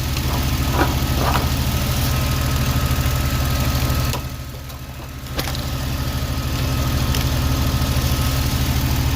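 Ford Mustang engine idling steadily, running in failsafe mode with its fuel pressure sensor disconnected while the alternator charges a run-down battery. The sound dips briefly just under halfway through.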